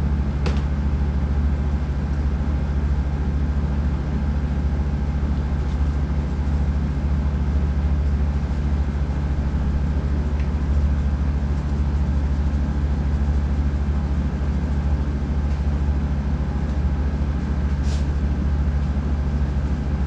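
Steady low mechanical hum of a running machine, unchanging throughout, with a couple of faint clicks.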